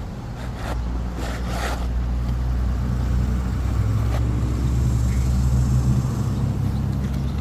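A steady low engine hum, growing slightly louder, with a few short clicks or scrapes about one to two seconds in.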